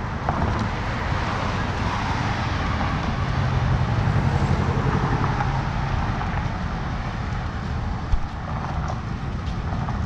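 Road traffic passing on the adjacent street: a steady rush of tyre and engine noise that swells as a car goes by, loudest around four seconds in, then eases. A brief thump comes a little after eight seconds.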